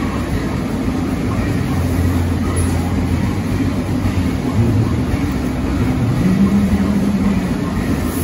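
A large vintage stationary engine running steadily, with a loud low mechanical drone.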